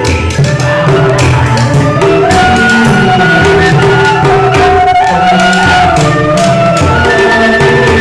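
Vietnamese bamboo transverse flute (sáo trúc) playing a chèo melody in held notes with small pitch ornaments, over a steady tapping of hand percussion.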